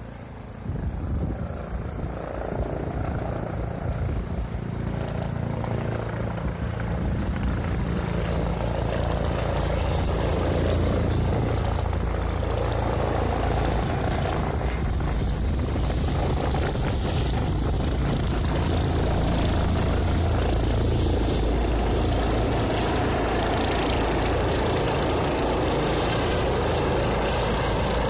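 Rescue helicopter coming in to land, its rotor and engine noise growing louder over the first ten seconds or so and then holding steady as it hovers low, with a high steady whine above the rotor rumble.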